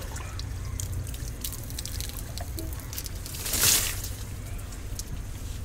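Water trickling and dripping from a hand pump's spout into a green bamboo tube, with one louder splash of water about three and a half seconds in.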